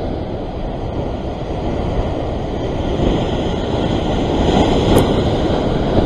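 Rough sea surging and breaking white against the rocks below, with wind buffeting the microphone; the wash grows somewhat louder a few seconds in.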